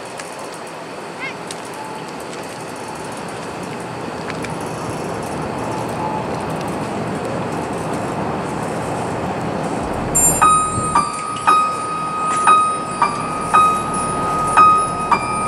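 A steady hum of stadium crowd noise after applause, slowly growing. About ten seconds in, the band's front ensemble starts a high bell-like note repeated about twice a second, opening the show.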